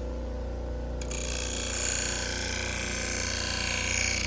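Steel food-processor S-blade held against a spinning felt buffing wheel, a steady hissing rub over the hum of the wheel's motor, starting about a second in. The back side of the edge is being buffed to take off the last of the burr.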